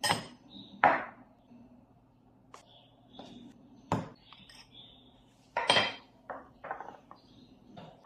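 Stainless steel espresso machine parts (tri-clamp fittings, a clamp and a coffee basket) being handled and set down on a wooden desk, giving a series of sharp metal clinks and knocks, several bunched together in the second half.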